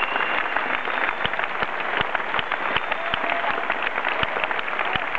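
Large audience applauding, a dense, steady clatter of many hands clapping.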